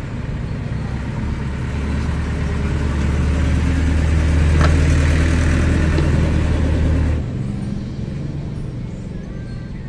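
A deep, steady engine-like rumble that grows louder for several seconds and then drops away abruptly about seven seconds in.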